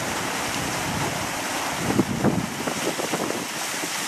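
Fountain water splashing in a steady rush, with a few short, louder bursts about two seconds in.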